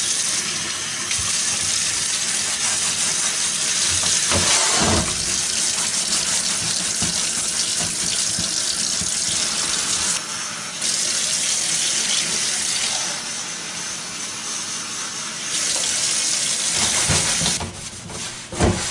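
Faucet running into a utility sink, the water splashing as a stove shelf and a plastic cup are rinsed under it. The flow sound shifts as things move in the stream. Near the end the water stops and a towel rubs across the shelf in quick strokes.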